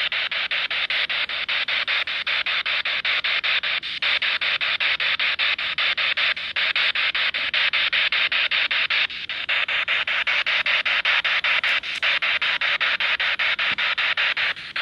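Radio static from a spirit box sweeping through stations: a steady hiss chopped by brief gaps several times a second, with a few longer dropouts.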